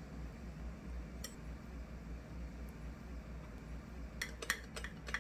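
Metal fork clicking against a ceramic plate while cutting soft rice cake: a single click about a second in, then a quick run of clicks near the end, over a low steady hum.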